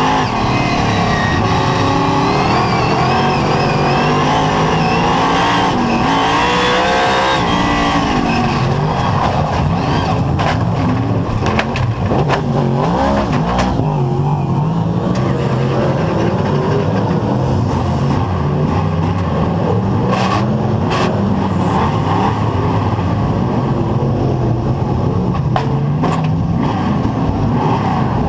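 Superstock speedway race car's engine heard from inside its cockpit while racing on a dirt oval, revving up and down through the first several seconds and then running steadier, with other race cars' engines around it. A few sharp knocks come through, a cluster about ten to fourteen seconds in and two more around twenty seconds in.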